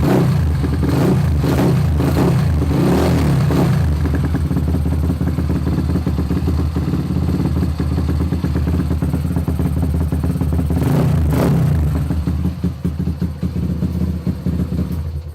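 Honda GL125 single-cylinder motorcycle engine running on a chainsaw carburettor. The throttle is blipped several times in quick succession in the first few seconds, the engine settles to a steady idle with one more blip partway through, and the sound cuts off abruptly at the end.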